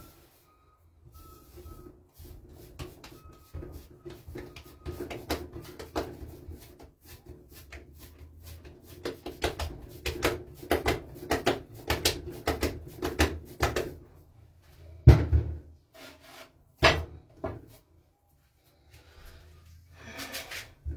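Bread dough being kneaded by hand in a large bowl: a quick, irregular run of soft thumps and squelches as the dough is pressed and turned, with two louder thuds about two-thirds of the way through.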